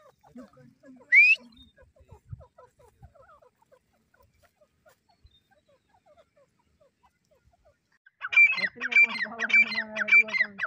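Grey francolin (teetar) calling. One loud, sharp rising note comes about a second in, then a few faint soft clucks. From about eight seconds in a loud, fast series of repeated calls starts, about three a second.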